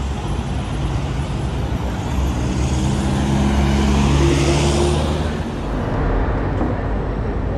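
Road traffic: a motor vehicle passes close by, its engine hum and tyre noise swelling to a peak about four to five seconds in, then falling away.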